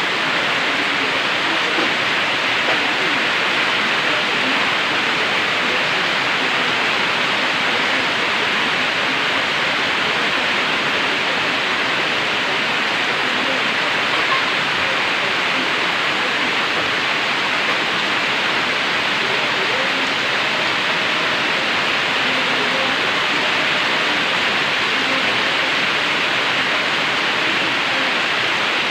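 Steady rain falling without a break, an even hiss at a constant level, brought by a tropical storm.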